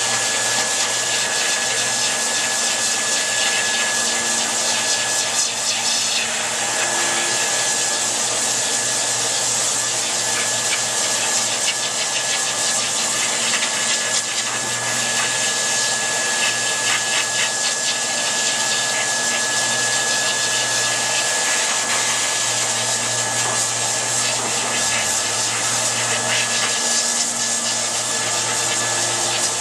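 Dog grooming dryer running steadily: a continuous rush of blown air with a constant high whine.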